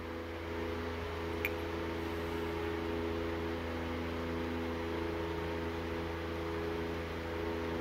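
Steady electrical or machine hum: a low drone with several fixed tones above it and a light hiss, unchanging throughout. One small click about one and a half seconds in.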